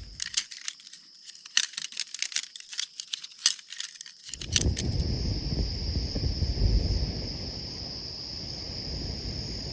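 Crickets trilling steadily in a high, even band. For the first four seconds there is a quick run of metallic jingling and clinking over it. After about four and a half seconds a steady low rumbling noise comes in.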